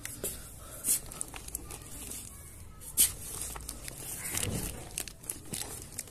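Cardboard shipping box being handled and opened by hand: packing tape and cardboard flaps crackling and rustling, with two sharp louder crackles, about a second in and three seconds in.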